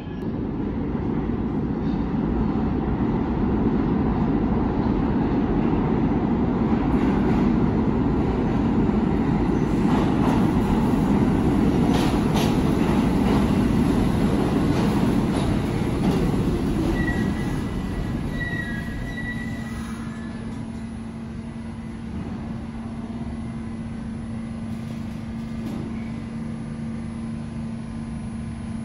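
New York City subway train rumbling through the station, growing louder and then fading after about two thirds of the way. Brief high wheel squeals come as it dies away, and a steady low hum remains.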